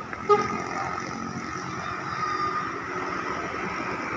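Steady road-traffic noise from passing vehicles, with one short, loud, sharp blip about a third of a second in.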